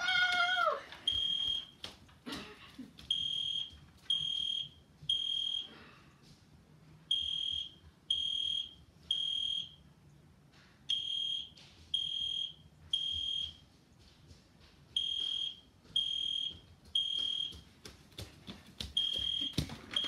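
Toy fire alarm pull station sounding a high electronic beep in groups of three: three half-second beeps about a second apart, then a short pause, repeating about every four seconds. This is the temporal-three pattern of a fire evacuation alarm.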